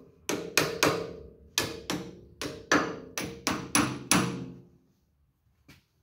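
Hammer tapping the steel PTO shaft of a John Deere 4440 into its bearing quill to seat it. About a dozen quick metallic taps in uneven groups, each ringing briefly, stopping about four seconds in.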